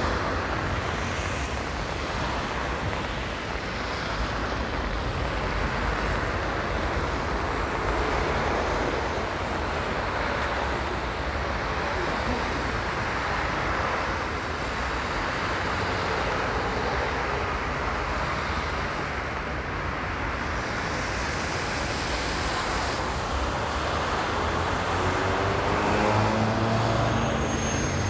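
Road traffic on a wet street: a steady hiss of tyres through water, swelling as cars pass one after another. Near the end an engine grows louder as a vehicle draws close.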